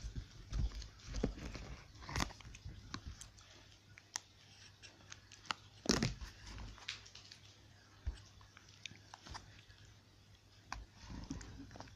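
Plastic food tub with a snap-on lid being handled and opened: scattered clicks and crackles of the plastic, with one louder knock about six seconds in. Near the end, fingers press into butter slime in the tub.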